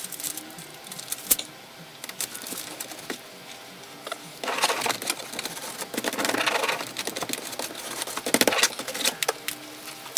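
Aluminium foil tape being rubbed down onto the sheet-metal edge of an air-handler cabinet with the back of a knife: scraping and crinkling in bursts, about four and a half seconds in, from six to seven seconds, and again near eight and a half seconds, with sharp clicks in between.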